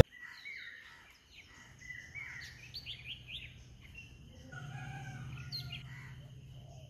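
Several birds chirping and calling in short rising and falling notes, over a low steady hum that comes in about two seconds in and grows louder midway.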